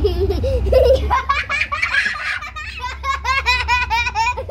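Young children laughing: after a lower voice in the first second, a fast run of high-pitched giggles several times a second, over a steady low rumble.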